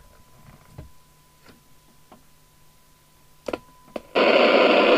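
Midland 77-810 CB radio's loudspeaker giving a faint steady test tone, heard only faintly because the signal generator sits on another channel, while the rotary channel switch is clicked round. About four seconds in, a loud rush of FM receiver hiss bursts from the speaker for a little over a second.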